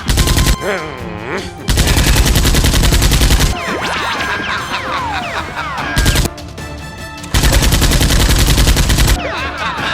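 Rapid automatic gunfire sound effects in several long bursts, with quick sliding tones between the bursts.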